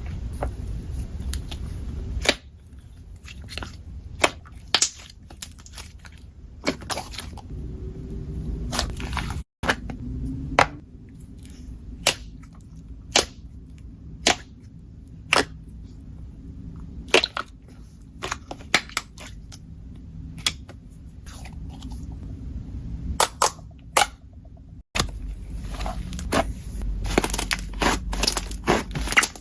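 Slime being squished and poked by hand, giving sharp, irregular pops and clicks over a low, soft squelching.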